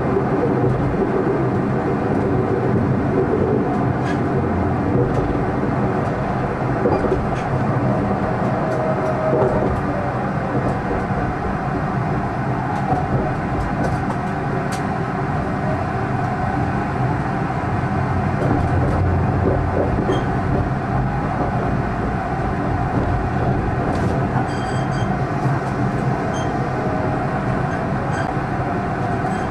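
A tram running along the track, heard from the driver's cab: a steady rumble of wheels and motors, with scattered clicks as it passes over rail joints and points. A faint wheel squeal comes and goes through the curves.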